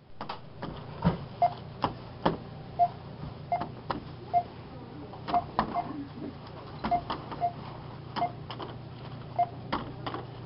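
Checkout barcode scanner giving short single-pitch beeps, roughly one a second, as the toys are scanned, among sharp clacks of plastic-packaged toys being handled, over a steady low hum.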